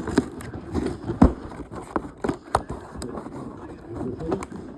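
Cardboard toy box being pried and pulled open by hand: irregular knocks, taps and scrapes of the packaging, the loudest knock about a second in.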